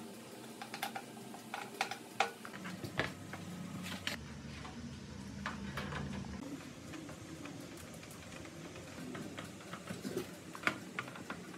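Scattered light clicks and taps of hand work on small parts, with a low hum that swells for a couple of seconds around the middle.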